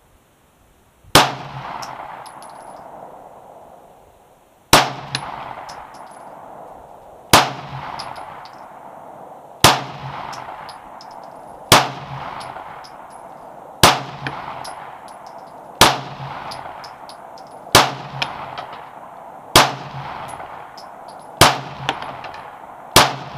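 Smith & Wesson M&P Pro Series 9mm pistol firing eleven single shots, about one every two seconds after a longer pause before the second. Each shot trails off in an echo lasting a second or two.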